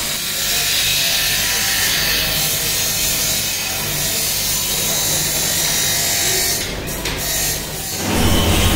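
A steady high hiss at the water tub as the wet damascus blade is handled. About eight seconds in, a belt-driven buffing wheel machine comes in with a steady low motor hum.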